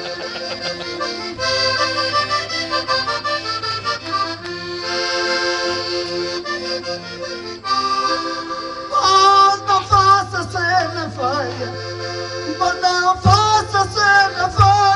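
Accordion playing a lively traditional tune between sung verses, with sustained reedy chords and melody. From about nine seconds in a louder, wavering higher melody line comes in over it.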